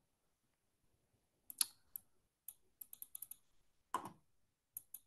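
Faint scattered sharp clicks and taps from working a computer, about a dozen, bunched near the middle, with one fuller, louder knock about four seconds in.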